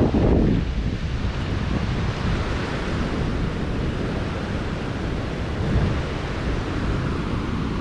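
A flooded creek rushing and churning over granite rocks in a steady wash of water, with wind buffeting the microphone.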